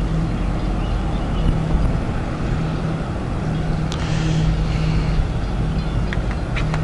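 Amtrak Empire Builder diesel locomotive approaching, its engine running with a steady low hum over a continuous rumble.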